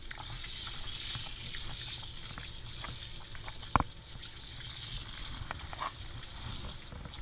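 Water spraying from a handheld bathing nozzle pressed into a wet poodle puppy's soapy coat: a steady hiss of water working through the fur. There is a single sharp click a little under four seconds in.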